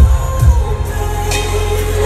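Loud recorded music with a deep bass beat and a held melody line.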